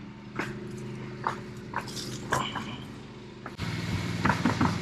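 An electric air pump runs with a steady hum, inflating a lift bag under sunken wood, with scattered clicks. About three and a half seconds in it grows louder and fuller.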